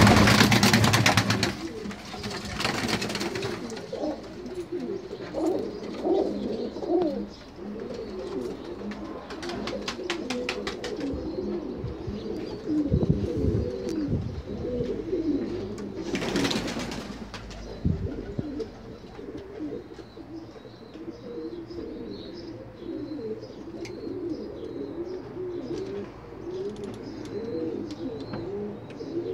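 Pigeons cooing continuously, many low wavering calls overlapping. A brief rushing noise comes about halfway through, and faint high chirps can be heard later.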